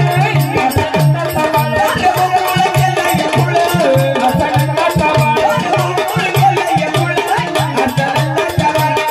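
Live Marathi folk music of a jagran gondhal performance: a gavlan with a drum keeping a steady beat, about two strokes a second, under a wavering melody line and light percussion.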